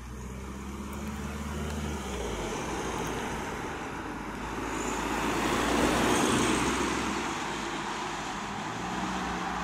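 A low engine hum, then a road vehicle passing close by: its engine and tyre noise builds to a peak about six seconds in and then eases off.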